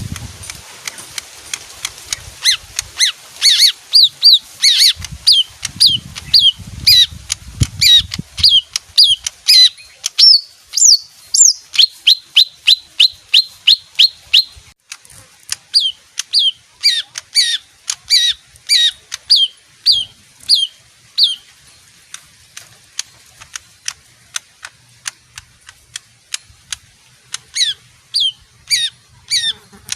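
A leafbird calling a rapid run of sharp, downward-slurred notes, a few each second, for most of the clip. It breaks off about two-thirds of the way through and gives a few more near the end. There is some low rumbling early on.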